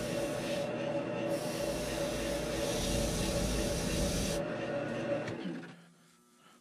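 Grizzly G0463 variable-speed wood lathe running with a steady hum while a hand-held abrasive hisses against the spinning foam blank. The hiss stops about four seconds in, and a second later the lathe is switched off and winds down to quiet.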